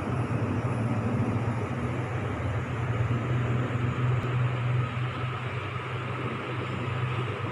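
A steady low mechanical hum under a constant whooshing noise.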